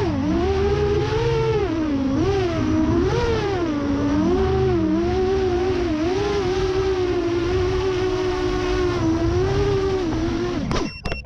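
7-inch FPV quadcopter's motors and propellers whining, the pitch rising and falling constantly with the throttle. The whine cuts off suddenly near the end with a brief clatter as the motors stop.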